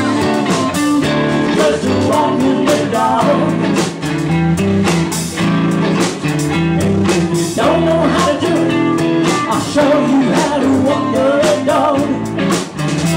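A live country-rock band playing a bluesy rock number: guitar over bass and a steady drum beat.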